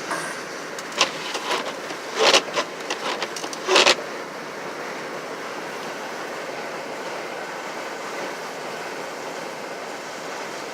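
Steady road noise inside a moving car. About one to four seconds in, a cluster of sharp knocks and clicks sounds over it.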